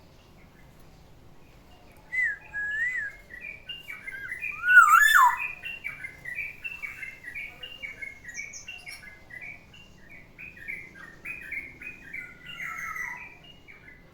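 Black-naped oriole singing: a few fluid whistled notes starting about two seconds in, the loudest a slurred whistle that falls away about five seconds in, then a long run of quick, chattering notes that stops near the end.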